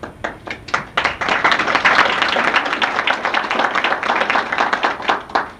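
Audience applauding: a few scattered claps swell into full, dense applause about a second in, then stop fairly abruptly near the end.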